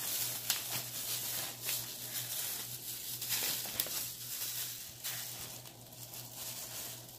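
Plastic wrap and disposable plastic gloves crinkling in irregular crackles as raw ground pork is peeled and tipped out of its plastic tray into a bowl. A steady low hum sits underneath.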